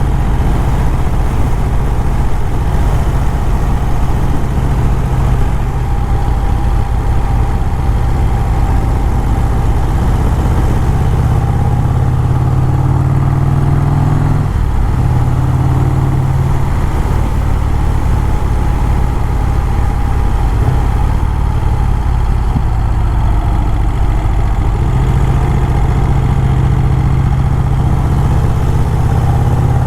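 1951 Vincent Rapide's 998 cc V-twin engine running steadily at a light cruise while the motorcycle is ridden, purring along almost as if idling. Its note briefly dips about halfway through, then carries on.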